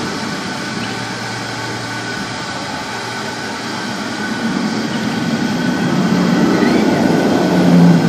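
Roller coaster train rolling along its track: a steady rumble that grows louder over the second half and peaks near the end.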